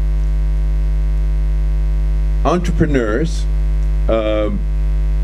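Loud, steady electrical mains hum, a low drone with many evenly spaced overtones, running unchanged under a brief pause in the talk.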